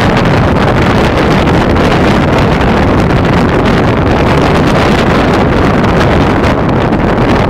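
Wind buffeting the microphone held at the window of a moving train: a loud, steady rush that drowns the train's own running sound.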